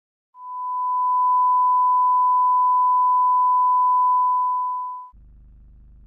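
Steady 1 kHz television test tone accompanying colour bars, a single pure note lasting about five seconds. It cuts off abruptly and is replaced by a quieter, low, even buzz.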